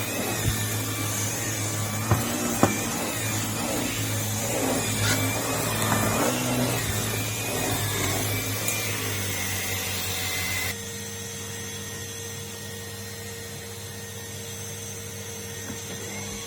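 Numatic Henry vacuum cleaner running, with a few sharp knocks in the first few seconds. About eleven seconds in the sound drops suddenly to a quieter, steadier hum.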